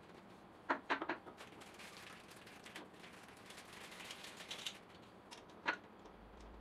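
Wooden shelf board and dowel legs knocking and clattering as they are turned over and set down on a tile floor. A quick cluster of sharp knocks comes about a second in, then a scraping rustle of the parts being handled, and one more sharp knock near the end.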